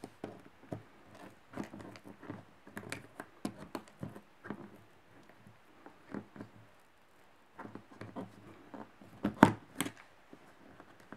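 A screwdriver scraping and clicking against the metal staples of a cardboard box as they are pried out, with one louder click about nine seconds in.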